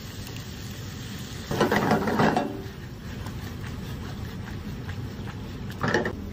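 Penne and cream cooking in a pan on a gas burner over a steady background hum. There are two louder bursts of pan and tossing noise: one lasting about a second, starting about one and a half seconds in, and a shorter one near the end.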